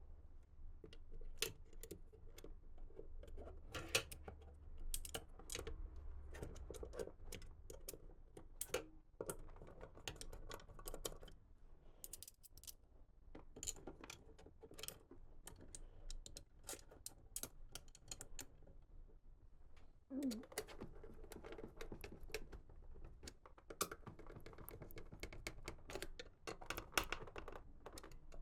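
Irregular small clicks, taps and rustling from hands working on computer parts: plastic and metal pieces being handled, set down and fitted.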